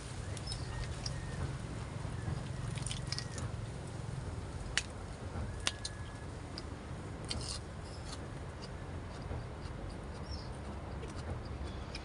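Strong wind buffeting the microphone as a steady low rumble, with two sharp clicks about five and six seconds in and a few faint high-pitched chirps.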